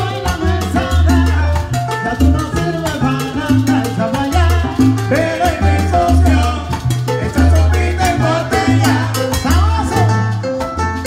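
Live salsa band playing: upright bass notes driving underneath, congas and percussion, and horn lines on top.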